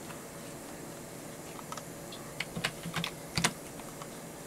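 Computer keyboard keys clicking: a quick run of about half a dozen keystrokes from about a second and a half in, the last ones the loudest, over a faint steady room hum.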